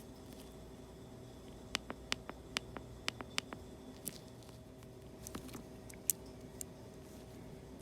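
Small sharp clicks and taps of hand tools and parts being handled during an iPad repair: a run of about eight between two and four seconds in, a few more later, the loudest about six seconds in. A steady electrical hum runs underneath.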